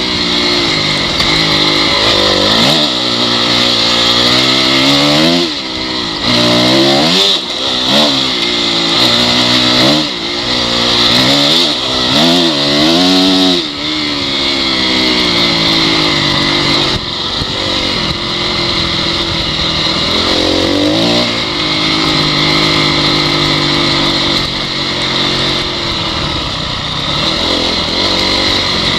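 Honda CRF four-stroke dirt bike engine under way, its pitch rising and falling repeatedly as the throttle is opened and shut, then holding steadier through the second half.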